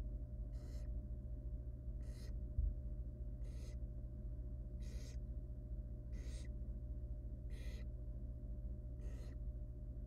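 Barn owl nestling giving its raspy, hissing begging call, the 'snore', seven times at an even pace of about one every second and a half. Under it runs a steady low electrical hum, with one soft low bump about two and a half seconds in.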